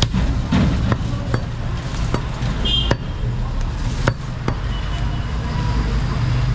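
A heavy butcher's chopper cuts through goat meat into a wooden stump chopping block. There are about eight sharp strikes at an uneven pace over the first four and a half seconds.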